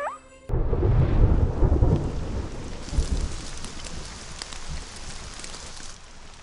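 Heavy rain with thunder, as a cartoon sound effect. It starts suddenly about half a second in, with a loud low rumble for the first second or two and another near the middle, then settles into a steady rain hiss that grows fainter toward the end.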